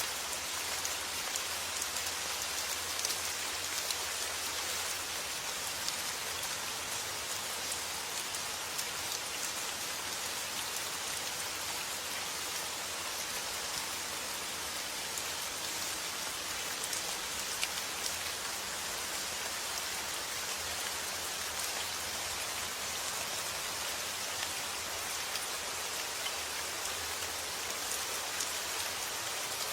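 Steady summer rain falling on a surface, a dense patter of many small drop ticks over an even hiss.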